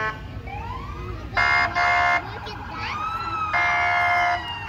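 Vehicle siren gliding up and down in pitch, with loud horn blasts: two short ones about a second and a half in, then a longer one near the end.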